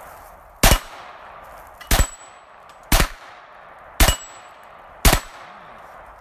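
Five shots from a 9 mm Glock pistol, fired at a steady pace about a second apart. A steel target pings after two of the shots.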